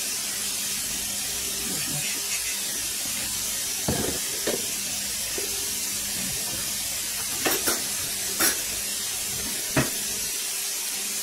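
Steady sizzle of food frying in oil in pans, with several sharp clicks of a utensil against a pan, the last one about ten seconds in.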